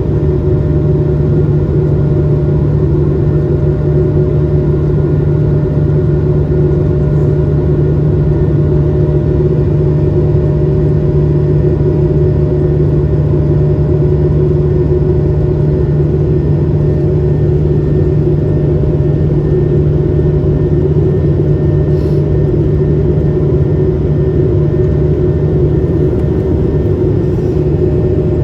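Airbus A220-300's Pratt & Whitney PW1500G geared turbofans heard from inside the cabin: a steady rumble with several constant hum tones, unchanging in level or pitch.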